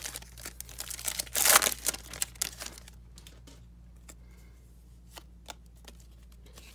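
A hockey card pack's wrapper being torn open and crinkled, loudest about a second and a half in. The cards are then handled quietly, with a few faint clicks.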